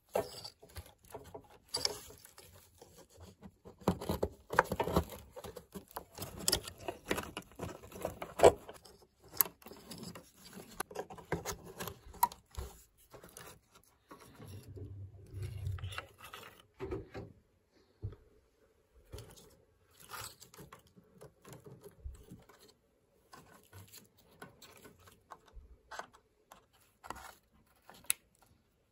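Gloved hands handling wiring harnesses and plastic electrical connectors in a car's engine bay: irregular clicks, taps, scrapes and glove rustling. The handling is busy for the first half and sparse after, with a faint steady hum underneath.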